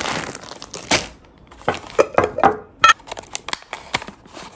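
Thin plastic packaging crinkling and crackling as it is handled, a run of irregular rustles and sharp clicks.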